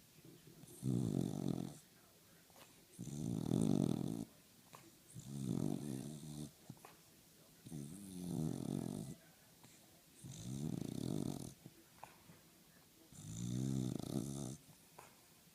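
Cocker spaniel snoring in its sleep: six snores about every two and a half seconds. Each snore is a pitched, rattling sound about a second long.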